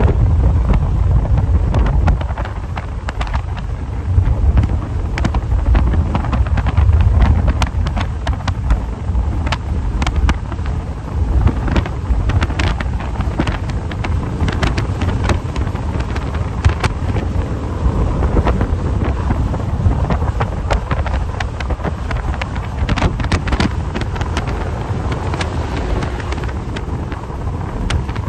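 Wind buffeting the microphone over the low rumble of a car travelling at highway speed, with many short clicks scattered through it.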